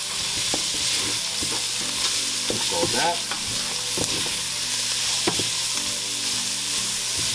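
Onion, garlic and spices sizzling in oil and meat gravy in a pan while being stirred, with the utensil knocking and scraping against the pan at irregular moments.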